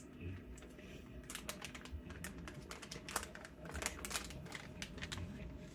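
Faint, quick run of irregular small clicks and taps as a thermal pad's packaging is handled and opened.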